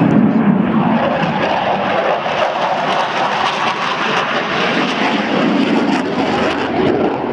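Loud, steady jet noise from an F/A-18 Hornet's twin engines as the fighter flies its display.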